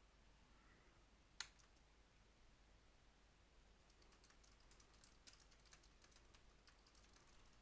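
Faint computer keyboard typing: a quick run of keystrokes in the second half, after one single sharper click a little over a second in.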